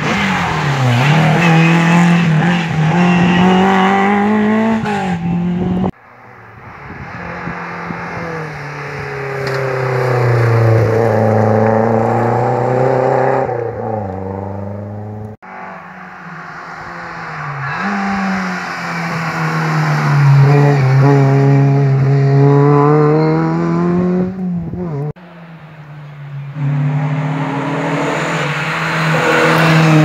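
Rally cars at racing speed, engines revving hard and climbing and dropping in pitch through gear changes as each car approaches and passes. The sound cuts abruptly three times to a different car.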